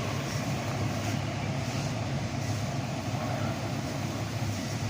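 A heavy engine running steadily with a low hum, with wind noise on the microphone.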